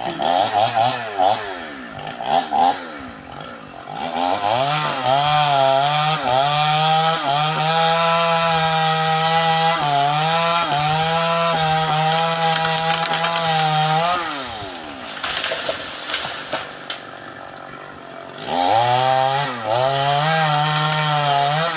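Two-stroke chainsaw revving in short blips, then held at full throttle for about ten seconds, its pitch dipping and recovering as it bogs under cutting load. It then drops back to idle before revving up again near the end.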